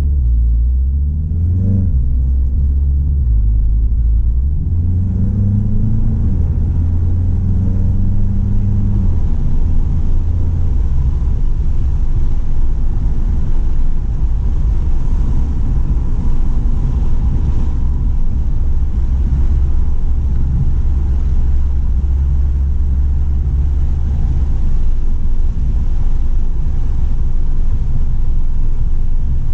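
A Stage 2 tuned 2017 VW GTI's turbocharged 2.0-litre four-cylinder engine running under track driving. Its pitch rises and falls over the first several seconds, then it holds a steady low drone mixed with road and wind noise.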